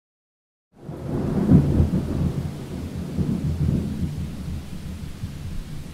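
A low rumble that starts abruptly about a second in, is loudest soon after, then slowly eases off while continuing.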